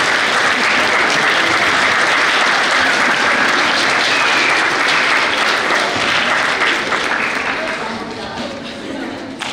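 Audience of children and adults clapping, holding steady and dying away near the end, with some voices mixed in.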